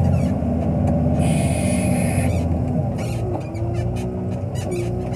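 Wheel loader's diesel engine running with a steady low rumble, easing a little about three seconds in. A short hiss about a second in.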